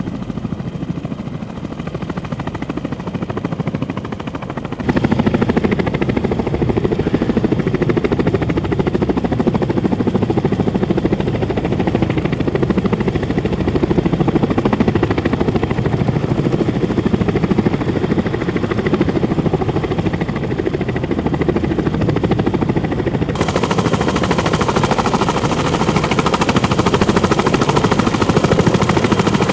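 CH-46 Sea Knight tandem-rotor helicopters running on the ground, their rotors turning with a fast, heavy chop. The sound jumps louder about five seconds in, and near the end a thin high whine comes in over the chop.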